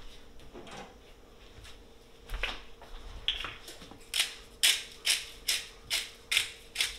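Hand-twisted pepper mill grinding pepper: a regular run of short grinding strokes, a little over two a second, starting about four seconds in, after a few scattered handling clicks.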